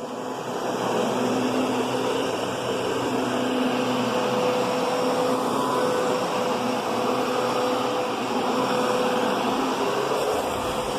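Kenmore Progressive vacuum cleaner running steadily while being pushed over the floor: a constant rushing of air with a low motor hum that wavers slightly in pitch.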